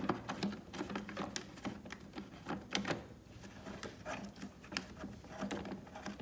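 Irregular small clicks and taps of a screwdriver and plastic parts as screws are undone on a backpack blower's plastic cover, with a faint steady low hum underneath.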